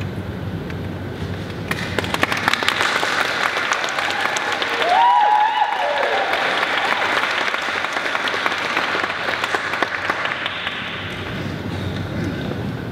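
Wedding guests clapping, the applause building about two seconds in and dying away near the end. A single voice whoops about five seconds in.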